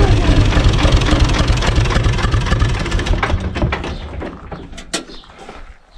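Universal U445 DT tractor's diesel engine idling, then dying away as it is shut off about four seconds in. A few sharp clicks and knocks follow near the end.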